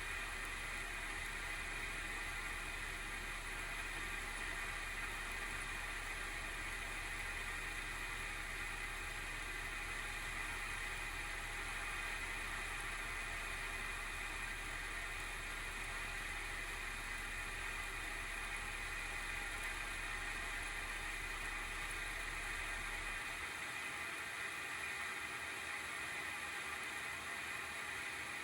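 The single cooling fan (FDC10U12D9-C) of an ASUS GeForce RTX 3060 12GB Phoenix graphics card, running under benchmark load with a steady whir and a constant high-pitched band of noise. This is the abnormal fan noise of a failing fan, which the owner puts down to either a wobbling shaft or dried-out bearing oil.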